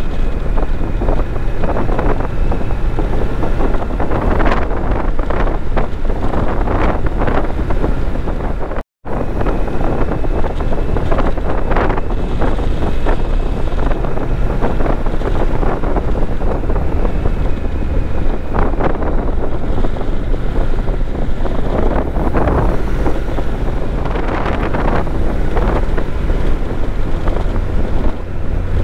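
Wind buffeting the microphone over the running engine and road noise of a Honda NC750X motorcycle's parallel-twin engine, riding at steady speed. The sound cuts out completely for a split second about nine seconds in.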